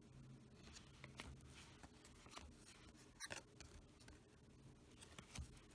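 Faint handling of baseball cards being flipped through by hand: soft sliding with a few light taps, the clearest tap a little past three seconds in.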